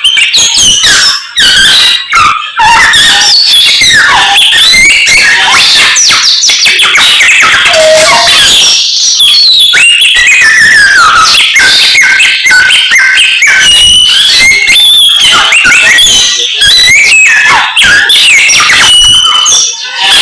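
Samyong songbird singing a loud, continuous, fast-changing song of whistled glides and chattering notes, with only brief pauses.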